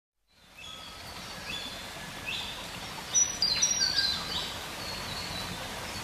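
Birds calling over a steady outdoor hiss, fading in at the start: many short whistled chirps, with a brief burst of louder calls about three seconds in.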